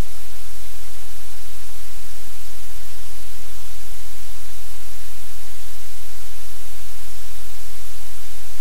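Loud, steady hiss with a low hum underneath, unchanging throughout: the constant background noise of the livecam's audio feed.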